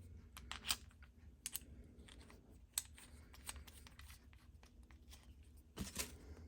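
Faint, scattered clicks and light scrapes of small metal parts being handled as a cut key blank is clamped into a lock-impressioning handle.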